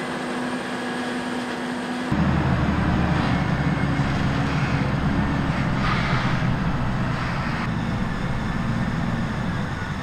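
Heavy farm machinery diesel engines running steadily. About two seconds in, the sound switches abruptly to a louder, deeper engine drone.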